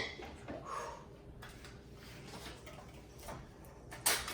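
Small plastic toy pieces clicking and being handled, with scattered light ticks and a louder rustle near the end.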